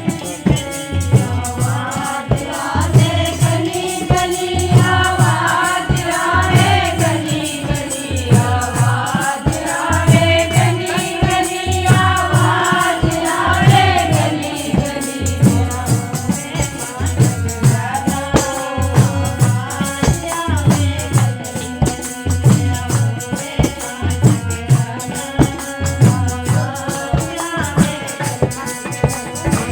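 A Hindi devotional bhajan sung over a steady drum beat and a shaking rattle keeping time.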